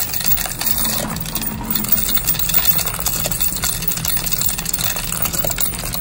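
Bank coin-counting machine running as quarters pour through its perforated tray, a dense, continuous rattle and clinking of coins over the steady hum of its motor.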